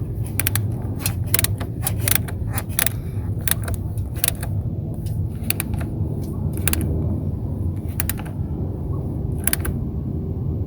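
Ratcheting wrench clicking in irregular clusters as it tightens a battery ground-cable terminal nut, over a steady low hum.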